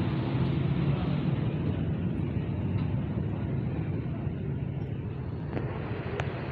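Steady low rumbling background noise, with a faint click about five and a half seconds in and a short high ping just after six seconds.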